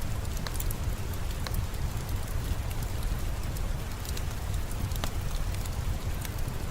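Steady rain with a deep low rumble, mixed with scattered sharp crackles and pops from a wood fire in a fireplace.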